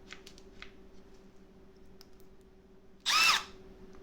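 A few light plastic clicks from handling a Milwaukee M12 Fuel cordless drill/driver, then about three seconds in a short whir as its motor spins up and back down on a quick trigger pull.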